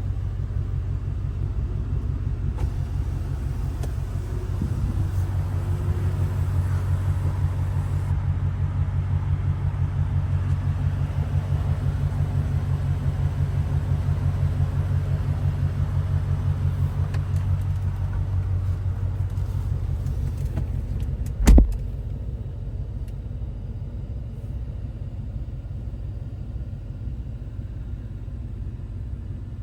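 Ford Raptor R's supercharged 5.2-litre V8 idling with a steady low rumble. A single sharp thump comes about three-quarters of the way through, after which the rumble is quieter.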